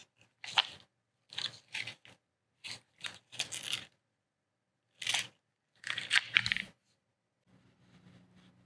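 A series of short scraping and rustling noises, about eight in six seconds and irregularly spaced, like material being handled or cut by hand. A faint low steady hum starts near the end.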